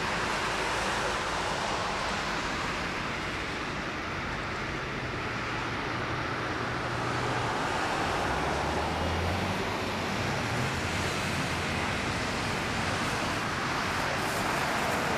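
Boeing 777-300ER's GE90 jet engines running at low power: a steady rumble and hiss, a little louder in the second half, with a low hum showing up in the middle.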